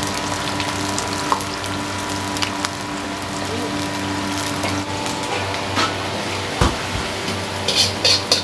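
Busy restaurant kitchen: a steady rushing hiss under a low steady hum, with scattered clinks of cookware, a dull thump partway through and a brief clatter of pots or utensils near the end.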